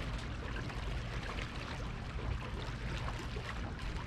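Waterside ambience: a steady low rumble of wind on the microphone, with the soft wash of water and faint scattered small splashes.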